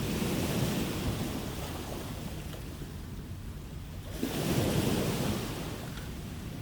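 Sea waves surging in twice, once at the start and again, slightly louder, about four seconds in, with a steady surf wash between.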